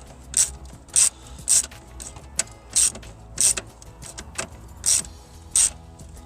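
Ratchet wrench being worked in short strokes, each a quick burst of clicks, about one and a half strokes a second, as a nut is run down on the hose-clamp hardware.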